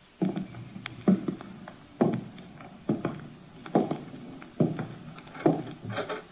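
Radio-drama sound effect of footsteps: about seven slow, evenly paced steps.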